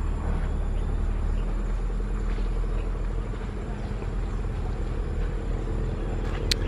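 A motor vehicle engine idling steadily nearby, a low even hum. A single sharp click sounds near the end.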